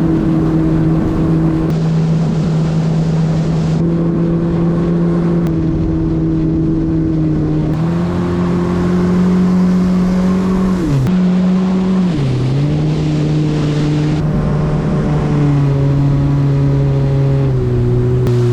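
Yamaha FX Cruiser HO WaveRunner's four-stroke engine running steadily at cruising speed. Its pitch dips briefly twice around the middle as the throttle is eased off and back on, then steps down twice near the end as it slows.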